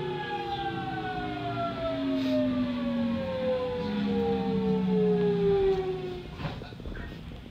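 Nankai 1000 series electric train's inverter and traction motors whining in several tones that fall steadily in pitch as the train brakes into a station. The whine fades out about six seconds in.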